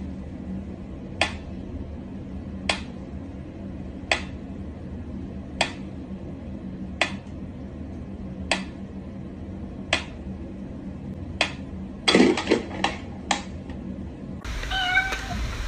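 Pyramid-shaped mechanical metronome ticking slowly and evenly, one sharp tick about every one and a half seconds. About twelve seconds in, a quick run of louder knocks, then a steady hiss near the end.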